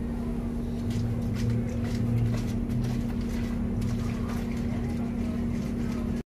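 Bus engine running with a steady low hum and drone, heard from inside the upper deck as the bus moves slowly, with a few light rattles and clicks. The sound cuts off abruptly near the end.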